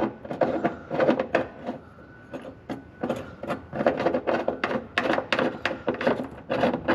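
Irregular clicks, taps and scrapes of a small metal harness mounting plate and bolt being handled and fitted by hand against the underside of the car's floor pan.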